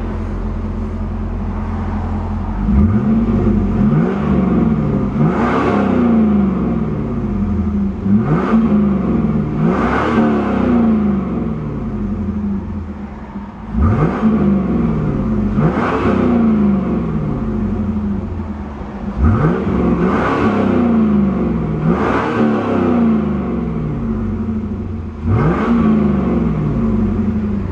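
2001 Chevrolet Camaro Z28's 5.7-litre V8 through its dual exhaust, idling and then revved about ten times in quick blips, each one rising sharply and falling back toward idle.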